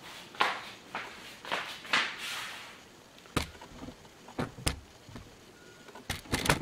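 Footsteps and handling noise from a handheld camera being carried around: scattered soft knocks, a brief rustle about two seconds in, then several sharp clicks in the second half.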